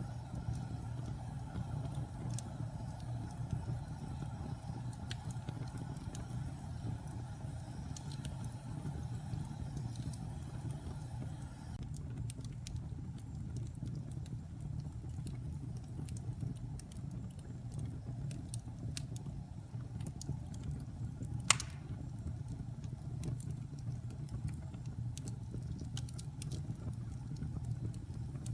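Wood fire burning in a fireplace: a steady low rumble of flame with scattered small crackles, and one sharp, louder pop about three-quarters of the way through.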